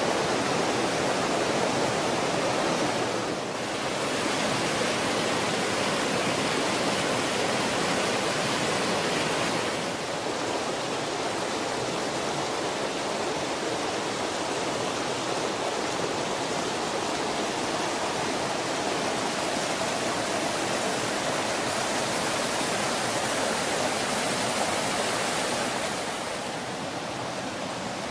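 Rushing water of a mountain creek cascading over waterfalls: a loud, steady roar that dips slightly in level a few times, the last near the end.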